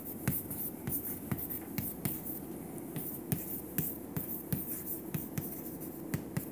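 Chalk writing on a chalkboard: an irregular run of sharp taps and short scratches as the letters are written.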